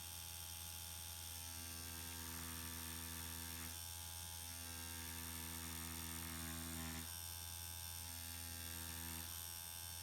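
A permanent-makeup machine pen running with a steady low hum while hair strokes are drawn. A faint higher buzz comes in three spells of two to three seconds each.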